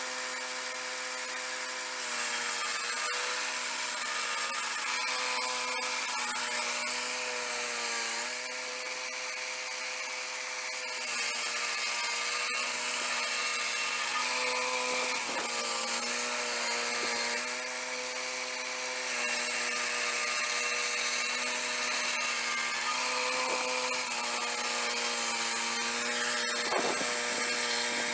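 A swing-blade portable sawmill's engine running steadily while its circular blade saws along a log. The sawing gets louder for several long stretches, and the engine note dips slightly a few times as the blade takes the load.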